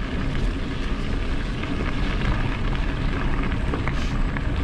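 Steady wind rush buffeting the microphone, mixed with tyre noise from a bicycle coasting down a long grade at speed.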